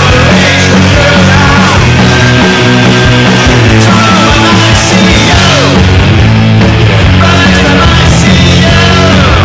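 Loud garage punk rock song with distorted electric guitars, bass guitar and drums playing steadily.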